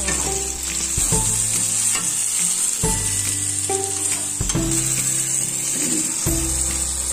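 Tomatoes, onions and spices sizzling in hot oil in an iron kadai, with a metal spatula stirring and scraping the pan now and then, under background music.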